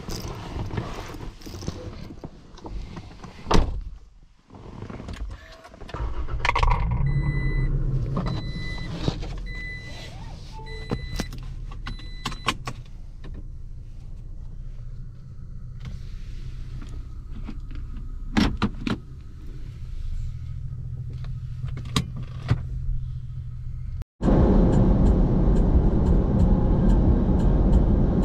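Cabin of a Toyota Tacoma TRD Pro: a few clicks and a sharp knock, then the 3.5-litre V6 starts about six seconds in and idles while a dashboard warning chime beeps repeatedly. Near the end the sound cuts to the louder, steady drone of the truck driving at highway speed.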